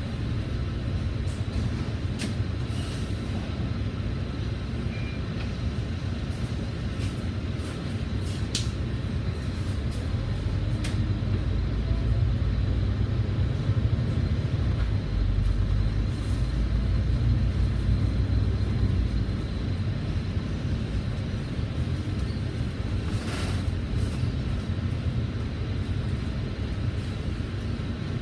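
A Volvo B9TL double-decker bus's six-cylinder diesel engine running as the bus pulls away and drives on, heard from inside the cabin. The low drone swells through the middle and eases off later, with a short hiss about two-thirds of the way through.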